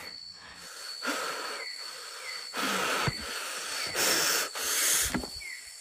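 A man breathing hard while walking fast: a few loud, hissing breaths, roughly a second or more apart.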